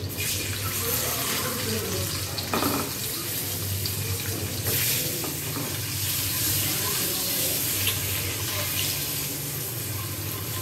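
Whole boiled eggs, slit and coated in turmeric and masala, sizzling as they fry in hot oil in a nonstick pan, the sizzle flaring louder a couple of times as more eggs are laid in.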